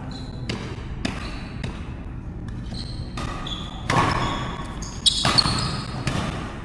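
A badminton rally: rackets striking the shuttlecock in sharp hits about every half second to second, with court shoes squeaking. The sound gets louder from about four seconds in.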